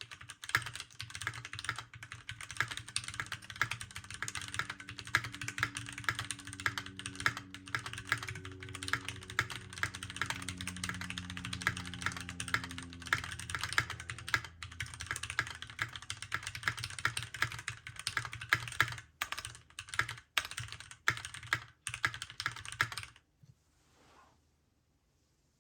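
Keychron Q1 mechanical keyboard typed on quickly: factory-lubed Gateron Phantom Red linear switches on an aluminum plate, double-shot ABS keycaps, case taped and foam-filled. Near the end the keystrokes slow to a few separate presses, then stop.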